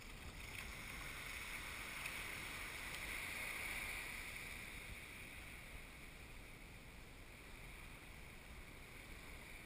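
Faint beach ambience: a steady hiss of breeze and surf that swells for a few seconds, loudest about three to four seconds in, then settles back.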